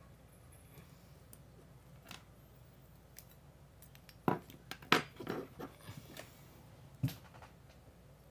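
Beyblade parts clicking and clacking against each other as they are handled and pressed together, with a few single clicks and then a quick cluster of clicks about four to five and a half seconds in, and one more near seven seconds.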